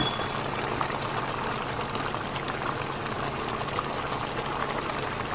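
Spicy goat meat stew simmering in a pan, its blended-spice sauce bubbling steadily with many small pops.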